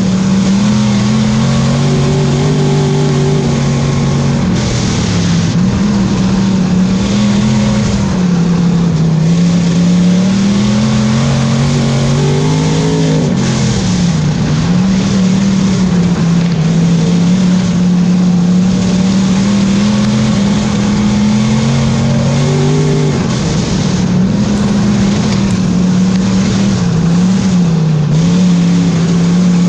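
Thunder Car race car engine running hard under racing load, heard from inside the cockpit, loud and continuous. Its pitch rises and falls as the throttle changes, with brief sharp drops about 13 and 23 seconds in.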